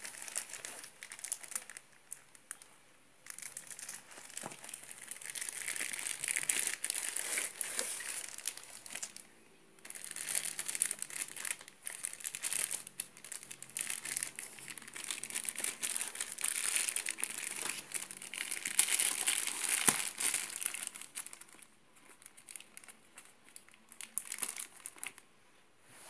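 Clear plastic shrink-wrap crinkling as a boxed tool is handled and unwrapped, in long bursts with short pauses between them.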